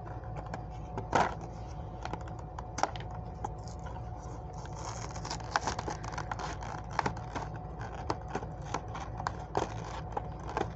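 Packaging for a 5-pack of die-cast toy cars being opened by hand: scattered clicks, scratches and brief tearing of cardboard and plastic, over a steady low hum.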